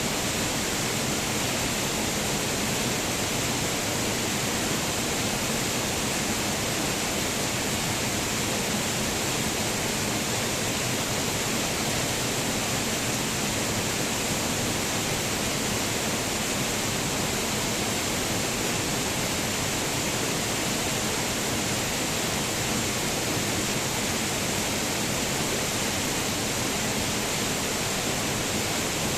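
Waterfall rushing in a steady, unbroken hiss of falling water, with no change in level.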